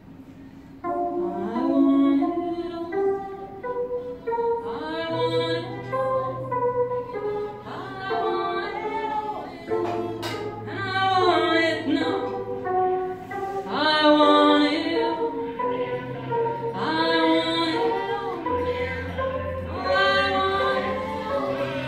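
A woman singing live into a microphone, accompanied on an electronic keyboard that holds long low bass notes; the song starts about a second in.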